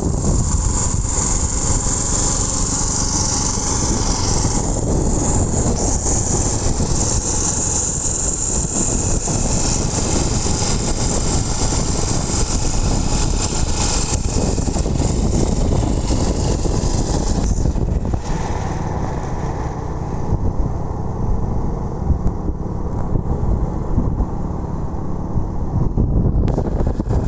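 Small generator (genset) engine on a motorised bicycle running steadily, with a loud rushing hiss over it that drops away about two-thirds of the way through.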